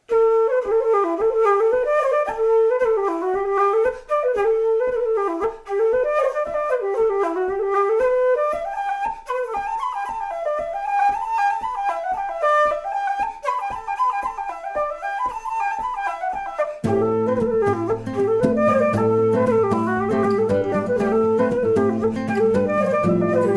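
Background music: a flute-like melody over a quick, even rhythmic pulse, with sustained lower notes coming in partway through.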